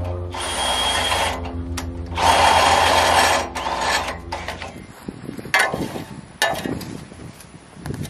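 A small engine runs with a steady hum, broken by two loud, harsh hissing bursts of power-tool noise, and stops about four and a half seconds in. Scattered knocks and scrapes of a shovel digging into soil follow.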